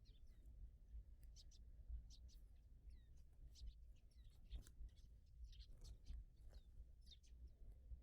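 Small birds chirping: many short, quick high chirps from several birds, coming thick and irregular, faint over a low steady rumble.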